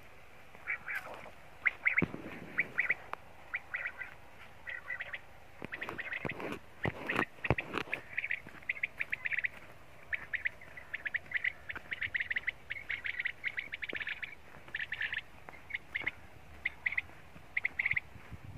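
Common quail calling over and over in quick groups of short, high chirps. A few sharp knocks sound among them, the loudest about two seconds in and again about seven seconds in.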